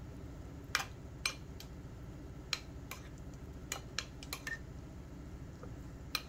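Metal spoon stirring a thick soap paste in a ceramic bowl, clinking lightly against the bowl's side now and then: about nine irregular clicks over a steady low hum.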